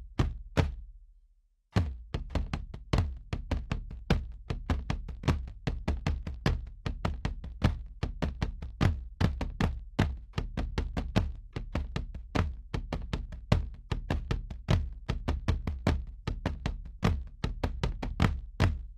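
A wooden box drum with a tack-studded top, struck with two sticks. A few opening strokes, a short pause, then from about two seconds in a fast, steady rhythm of about four to five strokes a second, each with a deep booming body.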